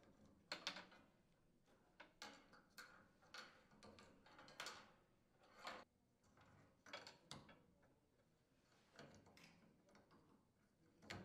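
Faint, scattered plastic clicks and handling noises as the spark switches of a new wire harness are fitted onto a gas range's valve stems, with a sharper click near the end.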